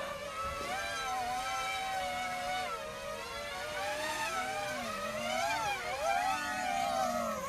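Small quadcopter drone's electric motors and propellers buzzing in flight, under an RC Starship SN8 model shell. The pitch wavers up and down as the throttle is worked to bring it down.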